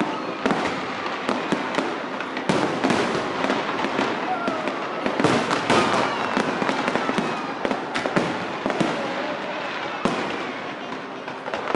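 Fireworks display going off continuously: a dense run of bangs and crackling pops with no pause.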